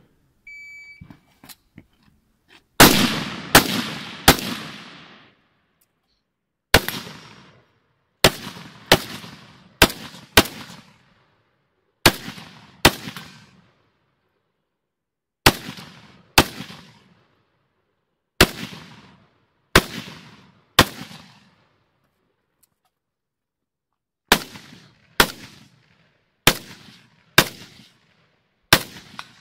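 Electronic shot-timer beep, then rifle shots fired singly and in quick pairs, about twenty in all, each trailing off in echo. The first three shots, in quick succession, are the loudest.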